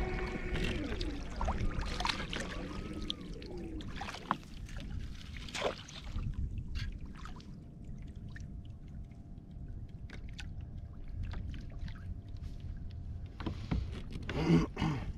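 Water lapping against a fishing kayak's plastic hull, with low wind rumble on the microphone and scattered small clicks and knocks of fishing gear. A louder burst of sound comes near the end.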